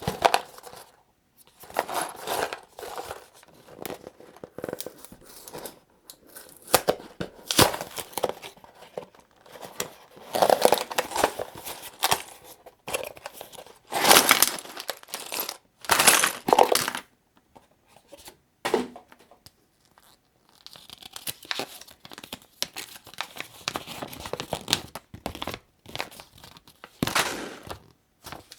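Packaging of a small building-brick set being torn open and crinkled, in irregular bursts of rustling with a few sharp clicks.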